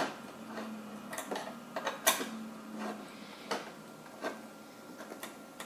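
Scattered small clicks and ticks of a driver turning the retention screws on a Threadripper TR4 CPU socket, the sharpest about two seconds in.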